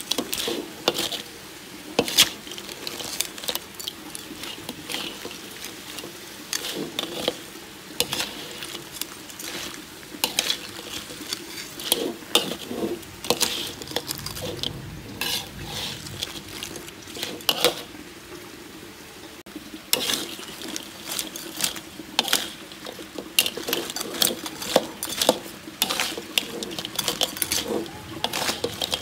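Metal spatula scraping and clacking against a wok as raw crab pieces in chili paste are stirred and tossed, the hard crab shells knocking together, in irregular strokes with a light sizzle.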